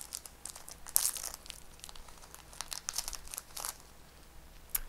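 Foil booster pack wrapper crinkling in the hands and being torn open, in uneven bursts of crackling.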